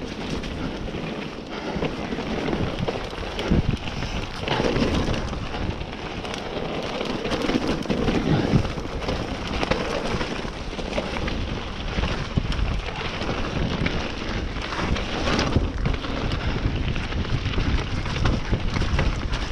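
Mountain bike riding down a trail at speed: tyres rolling over the dirt, the bike rattling and knocking over bumps, and wind buffeting the microphone.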